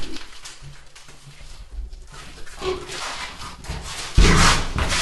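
Handling noise: the phone's microphone rubbing and brushing against clothing as it is carried, growing louder, with a sudden heavy scrape about four seconds in.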